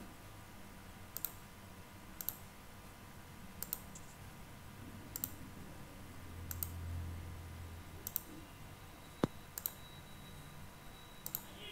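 Computer mouse button clicking, a faint press-and-release click every second or so, over a low hum.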